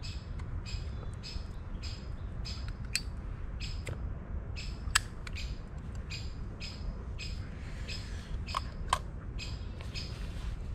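Woodpecker calling one short, sharp, high note over and over at an even pace of about two a second, scolding a person nearby. A few sharp clicks sound in between.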